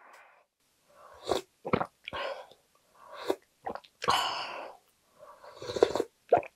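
Slurping ramen broth from a ladle: several short slurps with brief pauses between them.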